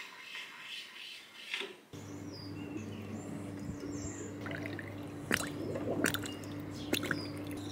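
Ice clinking in a drinking glass with liquid sounds, a few sharp clinks spread over the second half, over a steady low hum that starts about two seconds in, with faint bird chirps.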